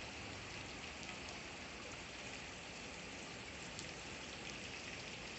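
Steady rain falling on a wet street: an even hiss with a few faint ticks.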